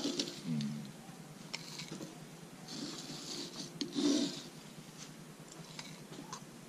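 Dried chamomile flowers rustling as a wooden scoop scrapes them up off a cloth and tips them into a small glass jar, in two spells of dry scraping with a few light clicks between.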